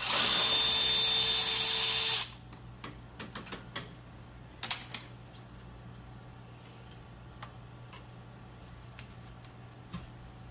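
Cordless electric ratchet running in one steady, whining burst of about two seconds, loosening a fastener as the radiator hoses and cooler lines are taken off. Then a scattered series of light clicks and taps from handwork on the fittings.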